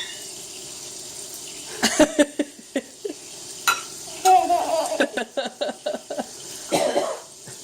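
Dishes and utensils clattering and knocking in a kitchen sink as a toddler plays in the water, with a quick run of knocks about five seconds in, over a steady hiss.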